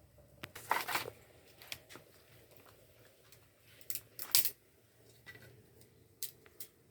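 Brief handling noises: short rustling or scraping strokes, the loudest just before a second in and just after four seconds in, with scattered light clicks between them.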